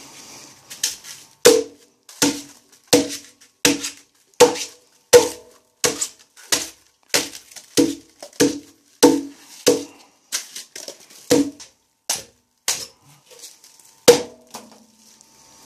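About two dozen sharp blows struck on the metal tank of a dismantled electric water heater, about two a second, each with a short ring. A pause comes near the end, then one last blow. The blows knock loose the insulation foam stuck to the tank.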